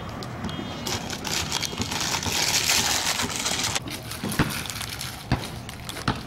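Crinkly, crackling rustle of a plastic snack bag being handled, which stops abruptly about four seconds in; a few sharp knocks follow.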